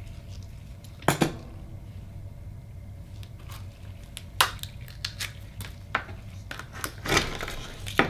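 A sharp knock about a second in as a digital caliper is set down on a wooden cutting board, then scattered clicks and a dense run of scraping and clicking near the end as a knife is worked into the shell of an akoya oyster to pry it open.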